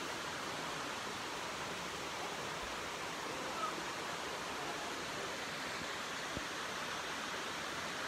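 Steady rushing of Awamata Falls and the shallow river below it, water pouring over rock, an even hiss with no pauses.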